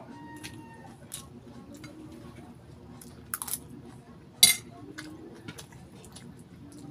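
Close-up eating sounds: scattered sharp crunches and clicks from biting and chewing crispy fried chicken, with light utensil clinks. The loudest crack comes a little over four seconds in.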